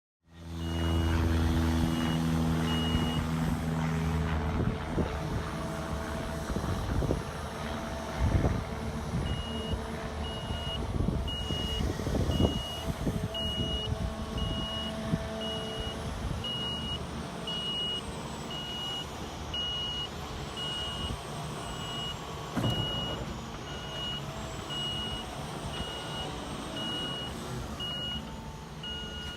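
Large 50-tonne hydraulic excavator working: its diesel engine running under load, with a high travel alarm beeping at a steady pace and scattered thuds and scrapes from the machine at work.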